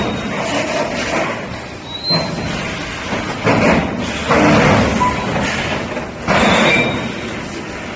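3D EPS wire-mesh sandwich panel welding machine running, with repeated noisy clunks and hissing surges every second or two over a steady machine noise.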